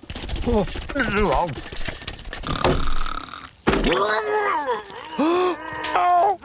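Wordless cartoon character vocalisations: wobbling cries and groans, then a run of rising-and-falling wails from about the middle on. A low rumble runs under the first half.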